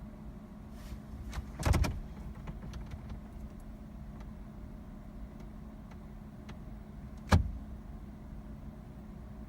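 A cluster of clicks and knocks about one and a half seconds in, then one sharp click near the end, inside a parked car's cabin over a steady low hum.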